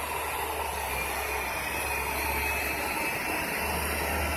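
Steady low rumble of fire engines idling, with a faint high tone rising slightly in pitch in the second half.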